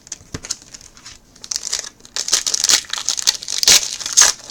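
Plastic wrapping of a trading card box and its packs being torn open and crinkled by hand: a few light crackles at first, then dense crinkling and tearing from about a second and a half in.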